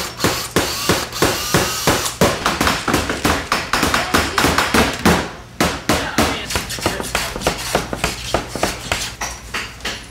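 Hammering: quick, uneven hammer taps, several strokes a second, with no break.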